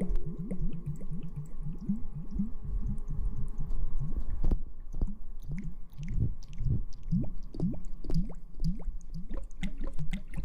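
Close-miked wet squishing and crackling of ASMR hair-washing sounds: a continuous, irregular run of short, soft strokes with small crackles, like lathered hair being rubbed against the microphone.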